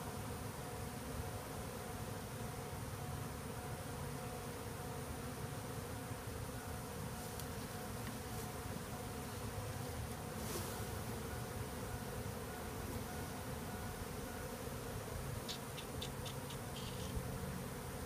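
Steady buzzing of a mass of honey bees around an open hive box, with a few light clicks near the end.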